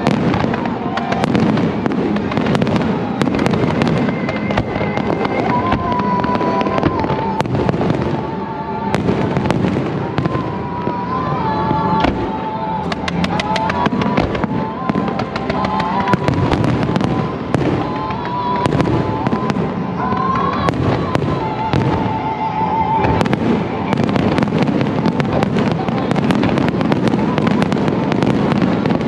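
Fireworks display: a dense, unbroken run of crackles and bangs from aerial shells bursting, with fountains and rockets firing from the waterfront.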